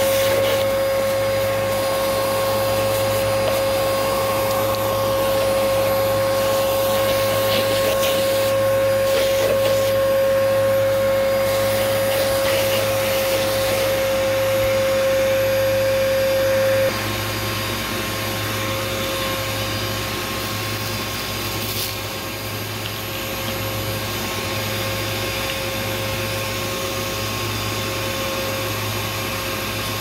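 Vacuum cleaner running steadily, a high whine over its motor noise. A little past halfway the whine falls away and the sound gets slightly quieter.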